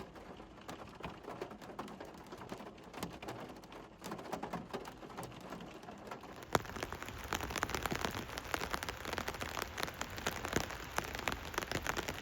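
Heavy rain pattering on a surface in a dense stream of drop clicks. About six and a half seconds in there is a sharp click, and the rain becomes louder and denser.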